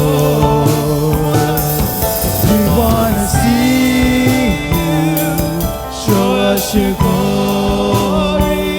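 Live contemporary worship music: a praise band playing with voices singing a sustained melody over held chords and cymbals.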